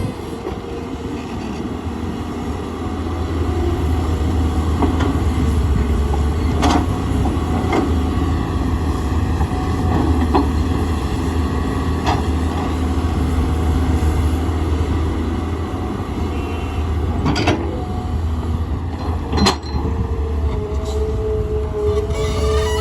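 Tata Hitachi excavator's diesel engine running steadily, with a sharp knock now and then, about six in all.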